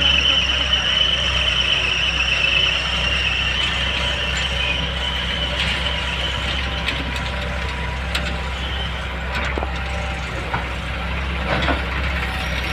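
Heavy diesel machinery, most likely the excavator's engine, running steadily with a high whine that fades about seven seconds in. Scattered clanks and knocks sound over the hum.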